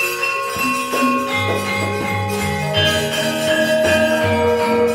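Javanese gamelan playing: bronze metallophones, pot-gongs and gongs ringing in long overlapping notes over a regular low pulse, with the kendang drum among them.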